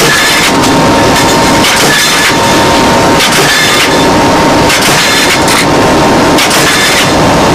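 Loud, steady cabin noise of an AC-130 gunship in flight: its four turboprop engines drone with a faint steady whine, and loose gear rattles and clanks now and then.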